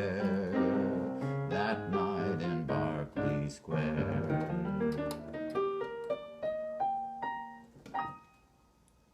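Piano playing sustained chords, then a rising run of single notes, about three a second, that ends about eight seconds in and fades to near silence.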